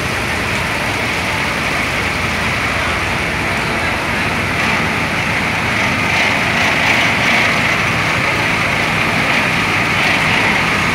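Steady engine noise from fire trucks running while parked at a fire scene, one with a hose coupled to its pump panel.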